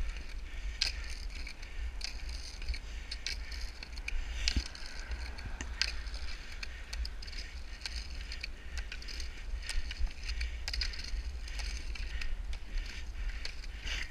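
Skate roller skis rolling on asphalt, with ski-pole tips striking the pavement in sharp clicks at irregular intervals over a steady low rumble.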